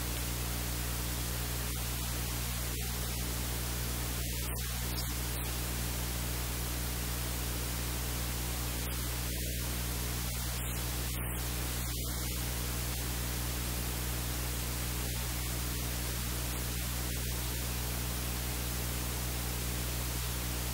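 Steady static hiss with a low electrical hum underneath, unchanging throughout: noise in the recording itself, with no other sound standing out.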